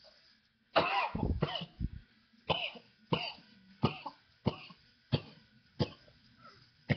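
A man coughing hard after a hit of cannabis smoke from a glass pipe: a loud, drawn-out first fit about a second in, then a steady run of single coughs, about one every two-thirds of a second.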